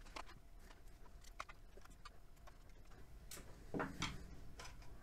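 Faint clicks and ticks of a screwdriver turning small screws out of a plastic speaker base, with a soft knock a little under four seconds in.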